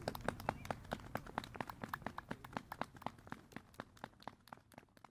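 Scattered applause from spectators: irregular single hand claps, several a second, growing fainter until the sound fades out.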